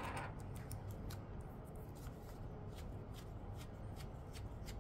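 Faint rustling and many small light clicks from gloved hands handling and turning over a replacement iPhone screen assembly.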